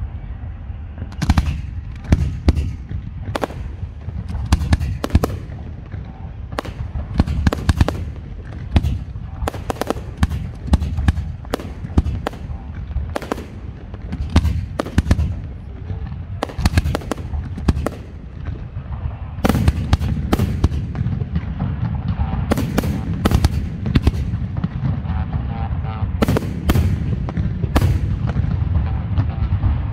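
Aerial fireworks display: shells bursting in irregular sharp bangs over a continuous low rumble of launches and echoes. About two-thirds of the way through it builds into a denser, louder barrage.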